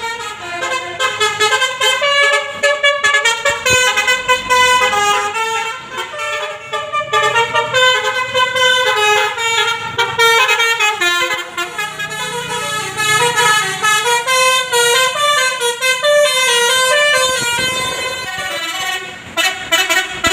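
Basuri multi-tone 'telolet' air horn on a Tunggal Jaya bus playing a fast, unbroken melody of stepped notes.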